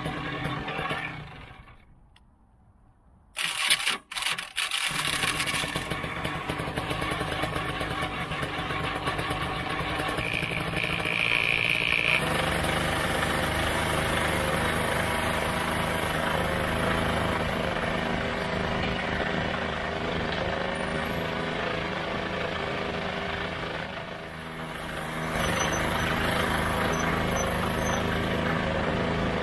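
Ultralight trike's pusher engine starting about three seconds in, catching after a brief stumble, then running steadily. Its note shifts about twelve seconds in, dips briefly a few seconds before the end and picks up again.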